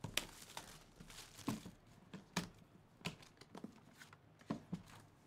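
Clear plastic shrink wrap being torn off a sealed trading-card box and crinkled in the hands, a string of short, irregular crackles and rustles. The loudest snaps come about a second and a half and two and a half seconds in.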